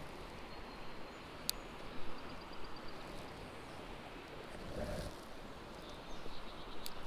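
Steady rush of a small stream's flowing water, with faint high chirping twice and one sharp click about a second and a half in.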